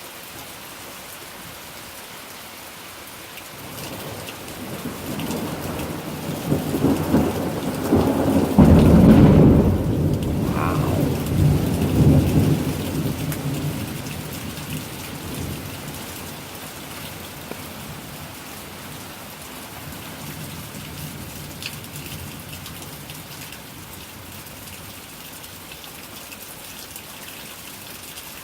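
Steady rain falling, with a long peal of thunder that builds from about four seconds in, is loudest over several seconds near the middle, and rumbles away.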